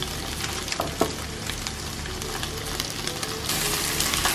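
Red snapper fillets sizzling and crackling in hot olive oil in a non-stick frying pan, with a few sharp clicks from a spatula in the pan about a second in. The sizzle grows louder near the end.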